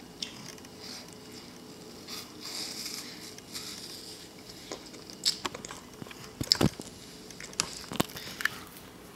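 A toddler biting and chewing a whole raw apple: soft, wet crunching, with a few sharper crunches in the second half.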